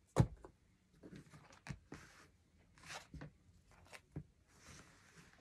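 Cards being handled and laid down on a cloth-covered table. One sharp tap comes just after the start, then soft scattered taps and brief rustles of cards.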